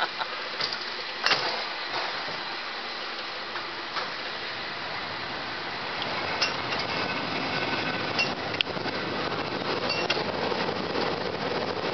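San Francisco cable car on California Street rolling along with a steady clattering rumble. There is a sharp click about a second in, more clicks, and brief high squeaks around the middle and near the end.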